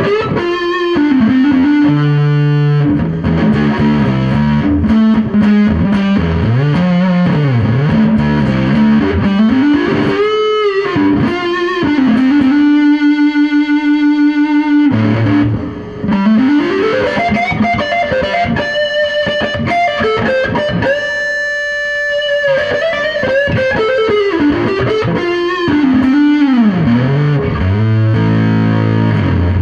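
Electric guitar played through a fuzz pedal: a single-note lead line with string bends and vibrato, and a couple of long sustained notes with a thick, overtone-rich tone.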